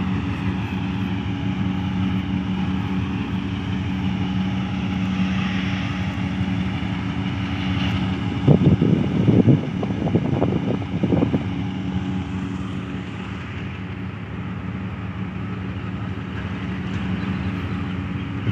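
Diesel-electric locomotive engine droning steadily as the train pulls out at low speed. About halfway through there are a few seconds of louder, irregular rumbling and knocking.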